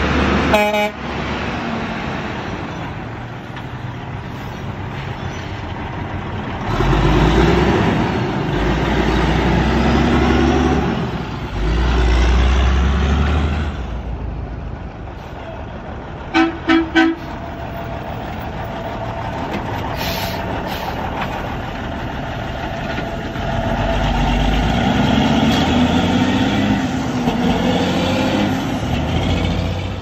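Diesel semi trucks passing close by, their engines rising in pitch as they accelerate away. A short horn toot sounds just under a second in, and three quick horn toots follow about sixteen seconds in.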